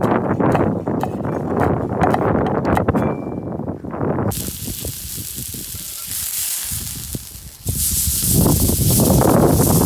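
Meat sizzling as it fries: a steady high hiss that starts abruptly about four seconds in. Before that comes low rumbling noise with scattered clicks.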